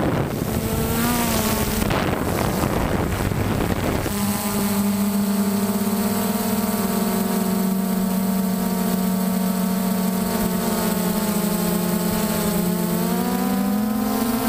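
DJI Phantom 1 quadcopter's electric motors and propellers whining steadily, as heard by the camera on board. A rushing noise covers the first four seconds, and the whine rises in pitch near the end as the motors speed up.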